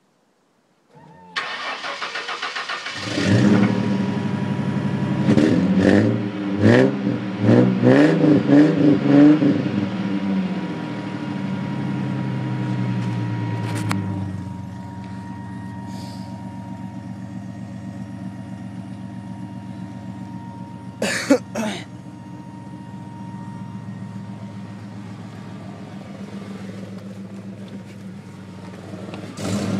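Ford Mustang with a dual Flowmaster exhaust starting up about a second in, then revved in a string of quick blips before settling into a steady idle about halfway through. There is one brief louder burst later on, and it revs again right at the end.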